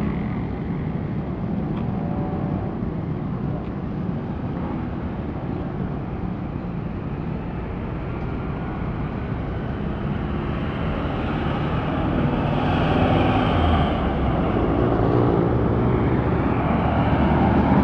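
Road traffic: a steady low engine rumble from passing vehicles, growing louder over the second half as a vehicle comes closer.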